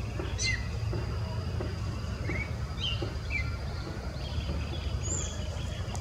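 Creamy-bellied thrush singing: a handful of short, sharply sweeping whistled notes at irregular gaps, over a steady low rumble.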